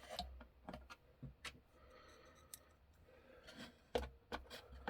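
Light, irregular clicks and taps of clock parts being handled and fitted back together, with a small cluster of clicks about four seconds in.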